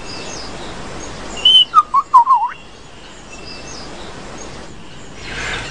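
A bird sings one short phrase of quick, wavering whistled notes against a steady forest background.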